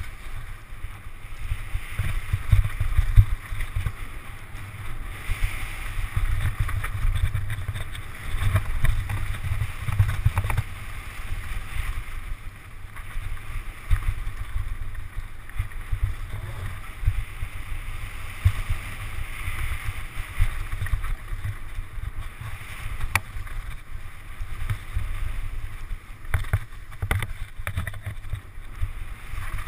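Wind buffeting a helmet or action camera's microphone at speed on a downhill mountain-bike run, with the tyres rolling over dirt and loose gravel. Scattered knocks and rattles come from the bike as it hits bumps.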